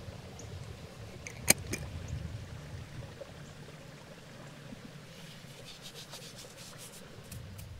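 Rubbing and scraping on a wooden surface during food preparation, over a low steady rumble. A single sharp click comes about a second and a half in, and a run of light, quick scraping strokes follows near the end.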